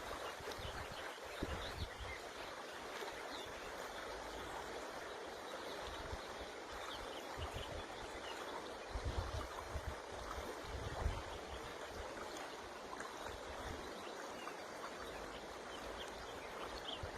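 River water running steadily, with low rumbles of wind on the microphone now and then and a few faint, brief bird chirps.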